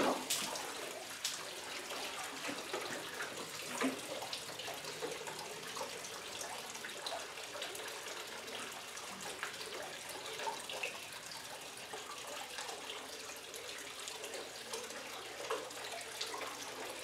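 Tap water running steadily into a metal bucket standing in a water-filled concrete trough, with small splashes and drips as a dog shifts about in the water.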